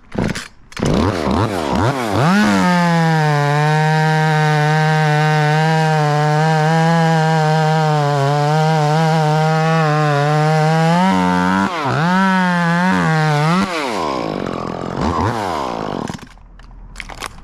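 Two-stroke chainsaw revving up and running at high, steady revs through a cut for about nine seconds, easing briefly and coming back, then revving down in a few blips and dropping away near the end.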